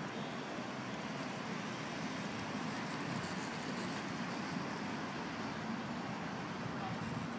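Steady hum of city road traffic, an even rushing noise without distinct events.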